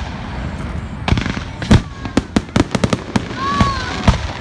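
Fireworks going off: a quick run of sharp bangs and crackles, several a second, over a steady rumble.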